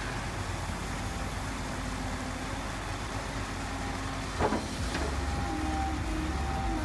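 Caterpillar 320D excavator's six-cylinder diesel engine running steadily while the hydraulics work the bucket through wet soil. There is a single sharp knock about four and a half seconds in, and a steadier whine joins shortly after.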